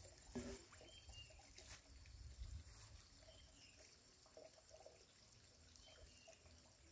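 Near silence: faint outdoor ambience with a low rumble, a few faint chirps and a couple of faint clicks in the first two seconds.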